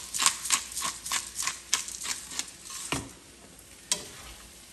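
Black pepper mill being twisted over a skillet of chicken livers: a run of crisp grinding strokes, about four a second, for roughly three seconds. A single louder knock follows about four seconds in, over a faint sizzle from the pan.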